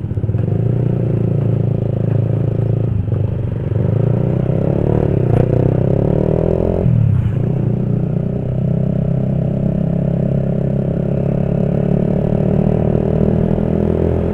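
Honda CB150R's single-cylinder engine running on the move. Its note climbs from about four seconds in, drops sharply about seven seconds in, then holds steady for the rest.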